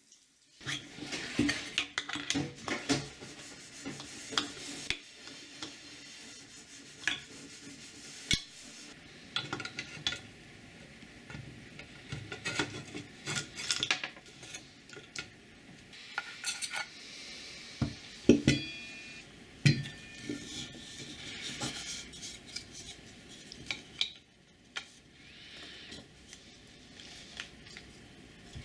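Metal parts being handled and fitted by hand: a steel disc brake rotor, bolts and a hex key clinking and knocking against each other and against 3D-printed plastic hub parts, in irregular short clicks. A brief metallic ring sounds twice a little past the middle.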